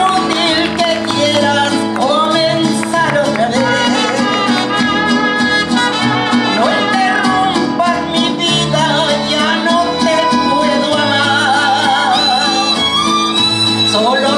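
Live mariachi music: violins, trumpets and guitars playing together, with a woman singing the melody over them.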